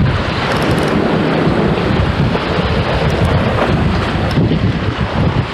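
Strong wind buffeting the microphone, a loud steady rumble over the wash of a rough sea.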